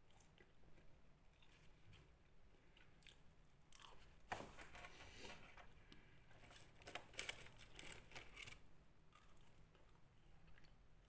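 A person chewing French fries close to the microphone, faint at first, then a run of crunches and clicks from about four seconds in.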